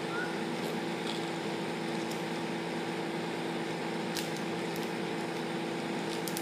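A steady machine hum with several fixed tones, and a few faint light clicks.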